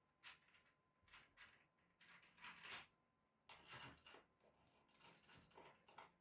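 Faint scraping and rubbing of fingers against a painted wall, in a handful of short strokes.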